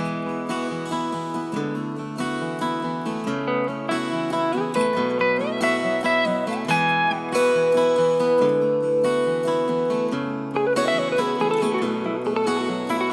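Background music led by acoustic guitar: plucked notes over a steady accompaniment, with a melody line that slides between notes.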